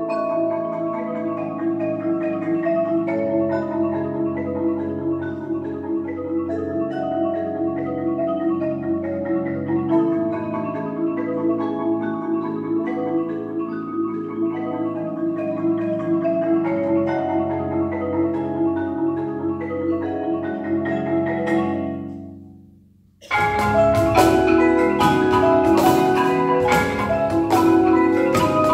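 Percussion ensemble of marimbas and vibraphones playing held, rolled chords and melody. The sound fades away to a brief silence about 22 seconds in. The full ensemble then comes back in loudly, with sharp cajon strikes under the mallet instruments.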